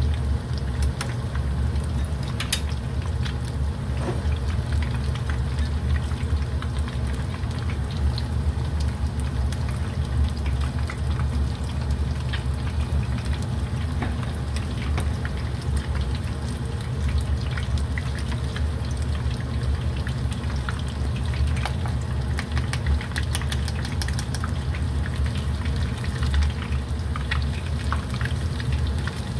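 Tempura deep-frying in hot oil: a steady sizzle with many scattered crackles, over a steady low hum.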